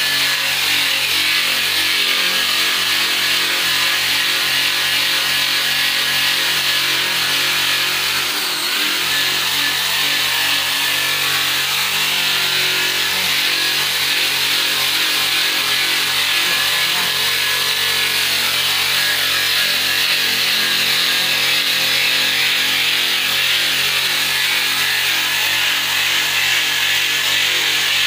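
Electric angle grinder fitted with a sanding disc, running steadily as it sands the face of a wooden door: a constant motor tone under the hiss of the disc on the wood. The pitch shifts briefly about eight seconds in.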